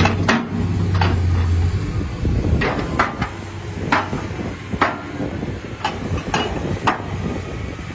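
Komatsu PC400-7 excavator's six-cylinder diesel engine running, with a steady engine note for the first second or two that turns into a rougher rumble, and sharp metallic knocks every half second to a second.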